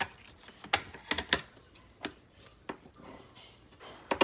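Scissors cutting: a series of short, sharp snips at irregular spacing, about two a second.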